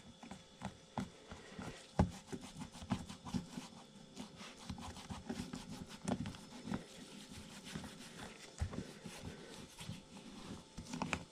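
Leather knife sheath being squeezed and worked by gloved hands around the knife inside it, pressing the leather to mold it to the knife. The sound is quiet, irregular soft knocks and rubs, with a sharper knock about two seconds in.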